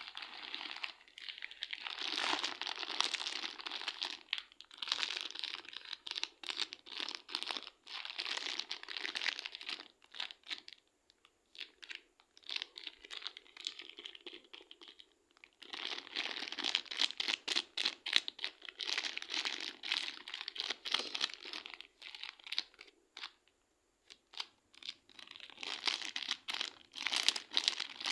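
Slime being squeezed and pressed by hand: a dense crackle of many small pops, in stretches of a few seconds with short pauses between them.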